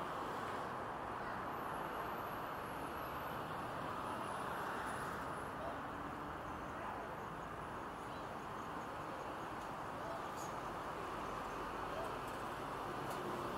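Steady road traffic noise from a busy multi-lane city street: the tyres and engines of many passing cars, vans and trucks blended into one even rumble.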